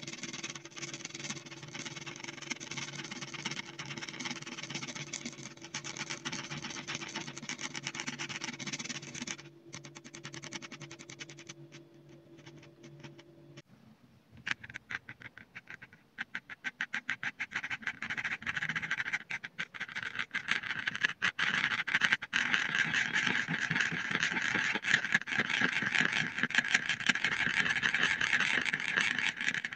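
Thick paint being stirred with a stick: rapid wet, sticky squelching and clicking. It thins out and nearly stops after about ten seconds, then starts again and grows louder in the second half. A low steady hum sits under the first half.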